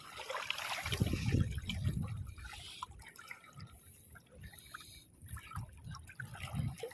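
Shallow water splashing and trickling as someone wades through it. The low swishes are loudest about a second in, then fade to scattered small splashes.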